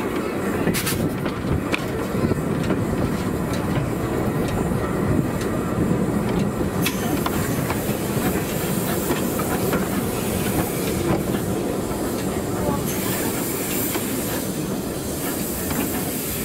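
Replica of Stephenson's Rocket steam locomotive moving slowly along the track: a steady rumble of the engine and its wheels on the rails, with a few sharp clicks in the first few seconds.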